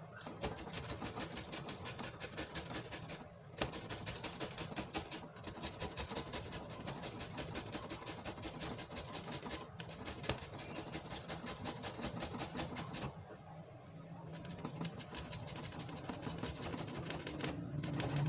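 Green papaya being grated by hand on a flat metal grater into an aluminium pot: quick, rhythmic scraping strokes, with a few brief pauses and a longer lull about two-thirds of the way through.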